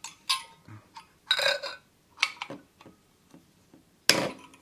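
Pliers clicking and snipping at the thin wire frame of a high-pressure sodium lamp's inner assembly: a run of sharp metallic clicks and short clinks, one with a brief ring about a second and a half in, and the loudest, sharpest snap about four seconds in.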